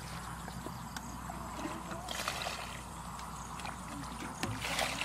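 Muddy water splashing as it is scooped up and thrown out of a paddy-field pool with a bucket: a splash about two seconds in and a louder one near the end, over a steady low rumble.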